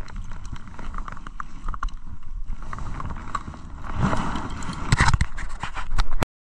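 Handling noise on a body-worn camera: a jacket rubbing over the microphone with scattered clicks and knocks, growing louder about four seconds in, with a few hard thumps around five seconds as the fishing rod is set down on the ice. The sound cuts off suddenly just before the end.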